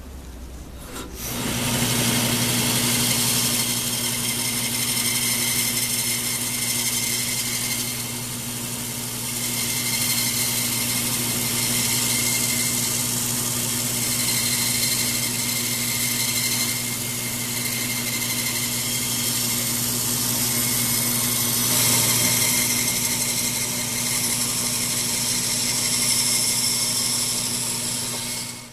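Bandsaw starting up about a second in and running with a steady motor hum, its blade cutting through pallet wood with a hissing rasp that swells and eases as the cut goes on.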